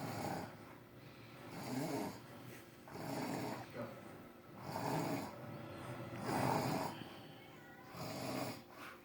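A man snoring in his sleep, a steady run of about six snores, roughly one every second and a half.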